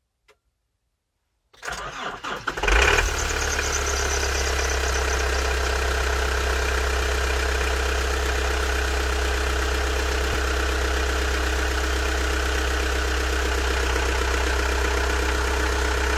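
Nissan Cabstar 3.0-litre four-cylinder diesel cold-started at −13°C. The starter cranks for about a second. The engine catches about three seconds in and settles into a steady idle.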